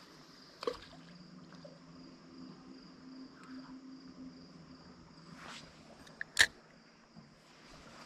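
Quiet outdoor riverside ambience with a faint steady high-pitched insect drone, broken by a short sharp knock just under a second in and a louder double click a little after six seconds.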